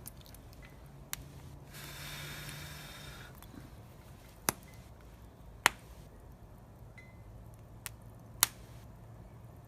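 Wood fire crackling: a few sharp, irregular pops over a faint low hum, with a short hiss about two seconds in.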